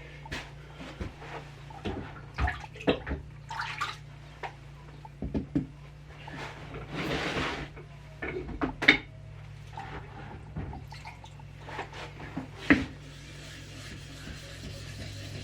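Scattered knocks and clatter of waterstone sharpening gear being handled and set down, with a short rush of water about seven seconds in.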